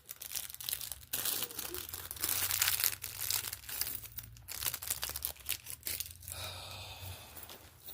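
Plastic bag of LEGO pieces crinkling as it is handled, with irregular crackles.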